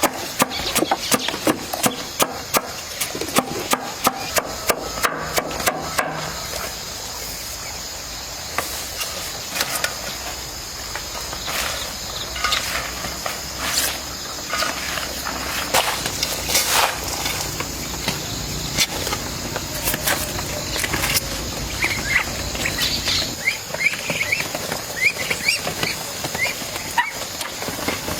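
Rapid, evenly spaced knocking for about the first six seconds, then scattered knocks over a low steady hum. Short, high chirps come near the end.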